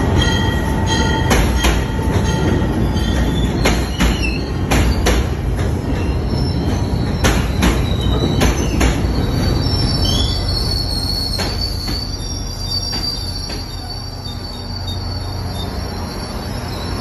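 CTrail Hartford Line push-pull passenger train running past along the platform, cab car first. Its wheels click in close pairs over rail joints over a steady rumble, and a thin, high wheel squeal comes in about ten seconds in.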